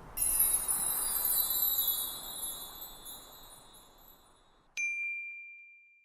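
A shimmering cluster of high chime tones that starts suddenly and fades away over a few seconds, then a single sharp ding that rings on as one clear tone.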